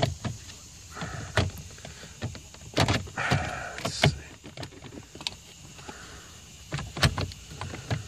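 Plastic dashboard trim panel of a 2001 Nissan Sentra being pushed and wiggled by hand to free its retainer clips: irregular clicks, knocks and short scrapes of plastic on plastic.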